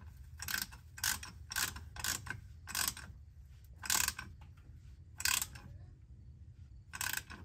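Ratchet wrench clicking in about eight short bursts as the handle is swung back and forth, tightening the fill plug on a transfer case.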